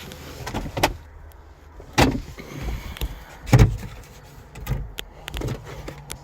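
A scatter of knocks and clunks with two louder thuds, about two and three and a half seconds in, over a low steady hum.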